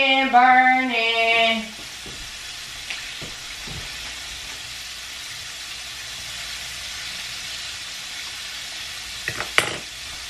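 Food frying in a pan on the stove, a steady sizzling hiss, with a few clicks of a utensil near the end. A voice sings a few held notes over it at first, stopping after about a second and a half.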